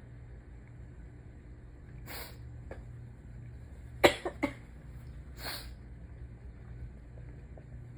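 A person sneezing hard while sick: a sharp breath in, then one loud, sudden sneeze about four seconds in with two quick smaller bursts right after it, then a breath out.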